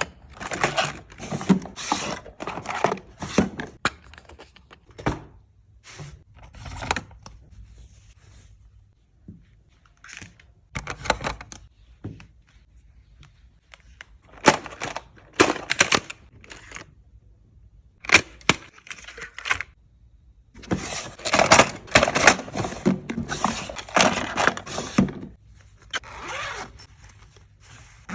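Packaging being handled and opened: irregular spurts of rustling, scraping and tearing with occasional thunks, broken by short pauses.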